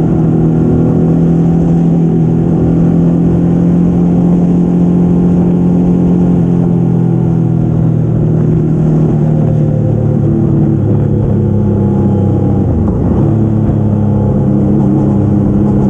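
Motorcycle engine running steadily at highway speed, mixed with wind rushing over the microphone. The engine note dips briefly about thirteen seconds in and settles a little lower.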